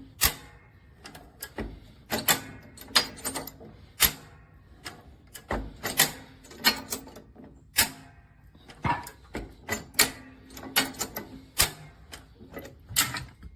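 An irregular series of sharp clicks and knocks, coming in uneven clusters several times a second with short quiet gaps between.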